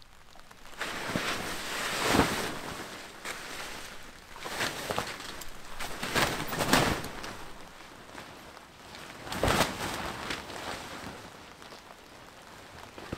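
Tent fabric rustling and crinkling in irregular bursts as a pop-up hub tent is pulled open and set up, with sharp snaps about two seconds in, near the middle and about nine and a half seconds in.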